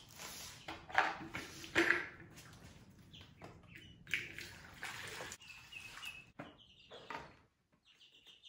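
Plastic knocks as a gallon water jug and a plastic poultry waterer are handled, with water pouring into the waterer. Young poultry peep in short high notes several times in the second half.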